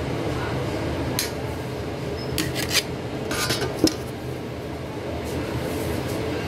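A metal spoon clinking against dishes a few times in short bursts, over the steady hum of kitchen machinery.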